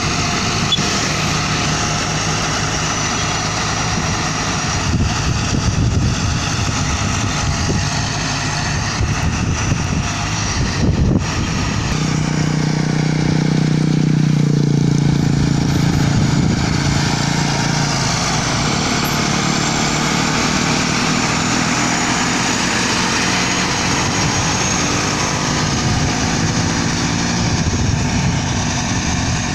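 Caterpillar 120H motor grader's diesel engine running steadily as the machine grades the gravel shoulder. About twelve seconds in, a steadier engine tone comes up for a few seconds and then fades.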